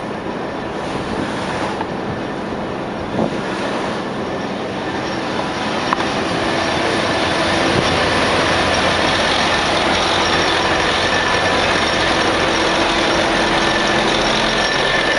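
Belt-driven shingle and stave mill machinery running: a steady mechanical rattle and hum with occasional clicks, growing louder about halfway through.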